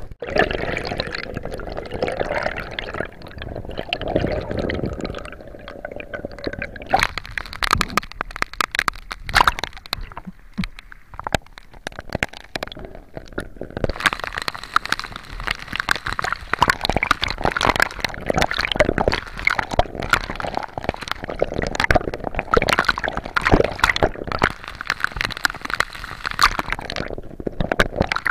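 Water gurgling and sloshing around a waterproof camera as it moves under and above the surface of a rough sea. Dense sharp crackling sets in about a quarter of the way through.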